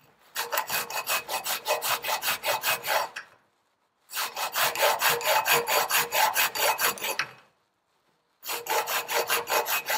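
Metal hand file rasping back and forth across a metal washer clamped in a bench vice, cutting a slot. It comes in three bursts of quick strokes, about four or five a second, with pauses of about a second between.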